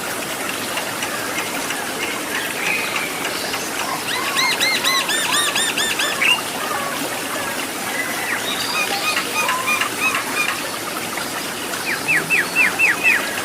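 A bird calling in runs of repeated high, squealing notes, three bursts of several notes each, the last short and loud, over the steady rush of a waterfall.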